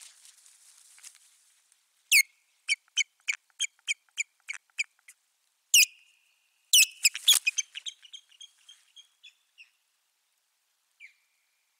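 Osprey calling with a loud series of sharp, high calls, about three a second, then a denser burst that fades away, with one faint call near the end. These are the calls of a territorial dispute with another osprey overhead.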